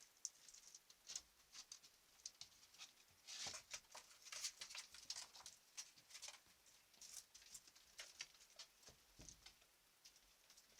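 Faint, irregular scratching and light tapping of a small animal's footsteps as it moves about, busiest in the middle.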